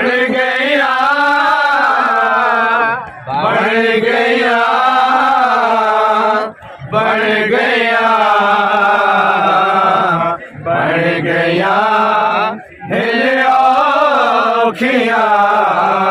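Men chanting a Punjabi noha, a Muharram mourning lament, in long held and wavering phrases of a few seconds each, with short breaks for breath between them.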